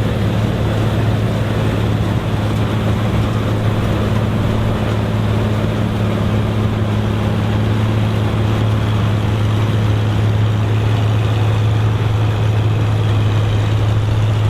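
Vintage combine running steadily while harvesting corn: a constant low engine hum mixed with the rush of its machinery, unchanging throughout.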